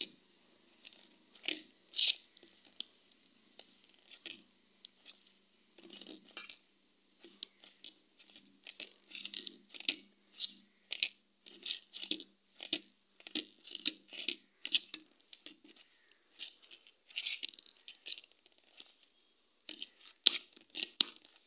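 Flour being rubbed and mixed by hand in a steel bowl: irregular short scrapes and crunches of fingers and flour against the metal, with a few sharper clicks about two seconds in and near the end.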